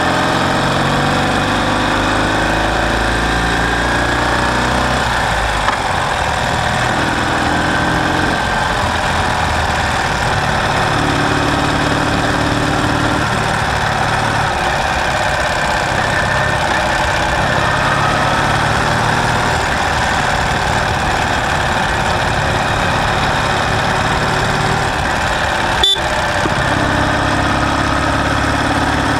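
Ural sidecar motorcycle's flat-twin engine running, its note shifting up and down in steps every few seconds. A single sharp click comes near the end.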